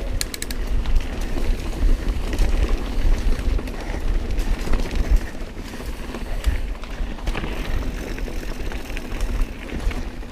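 Mountain bike riding over a rocky trail: tyres rumbling and clattering over rocks and the bike rattling, with a heavy low rumble of wind on the camera microphone.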